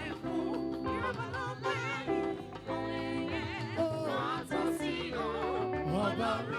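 Yoruba gospel praise music: a singer's voice with wide vibrato over a band accompaniment with held notes and a steady drum beat.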